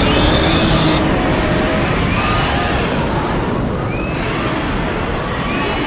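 Stampede sound effect: a dense, continuous rumble of a herd's hooves, easing slightly, with a few faint short high cries above it.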